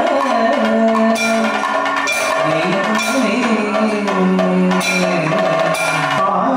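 Kathakali vocal music: a male singer's low, ornamented sung line sliding between notes over a steady drone, punctuated by a few sharp metallic strikes of the chengila gong.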